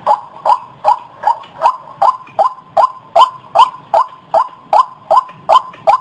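White-breasted waterhen calling: a fast, even run of loud "ruak" notes, about two and a half a second.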